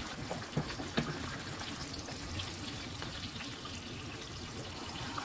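Eggs frying in a nonstick pan, a steady sizzle, with a couple of light knocks from a wooden spatula breaking them up near the start.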